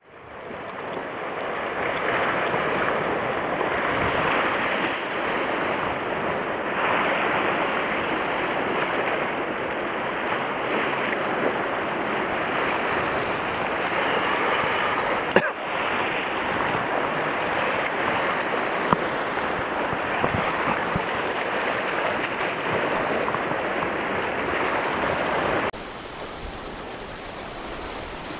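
Sea surf washing and breaking against a rocky shore, a steady rushing hiss with a single sharp click about halfway through. It becomes quieter shortly before the end.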